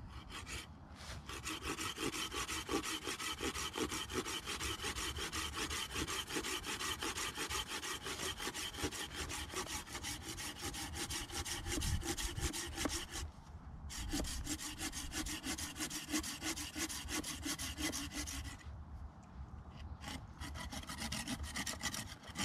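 Hand saw cutting through a thick wooden stick with quick, even back-and-forth strokes. The sawing stops briefly just past halfway, runs on, stops again about three-quarters through, then a few last strokes.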